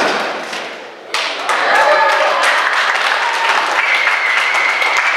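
A wrestler's body hits the ring canvas with a loud thud that rings briefly in the hall, then about a second in the crowd breaks into shouting, cheering and clapping that carries on.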